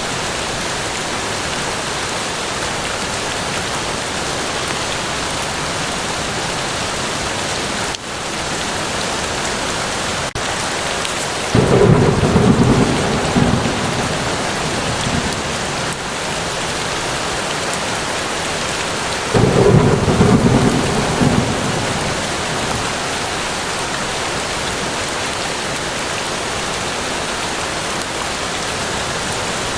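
Steady rain falling, with two sudden claps of thunder, one about a third of the way in and one about two-thirds in, each rumbling away over a few seconds.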